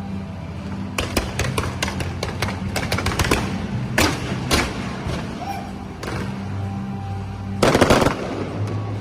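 Fireworks going off in quick runs of sharp cracks, with a dense burst of rapid bangs near the end, over music with a steady low drone.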